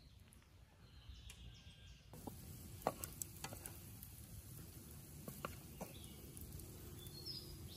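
Sliced pork and onion stir-frying in a pan over a wood fire: a steady sizzle that starts about two seconds in, with chopsticks clicking against the pan as the food is stirred.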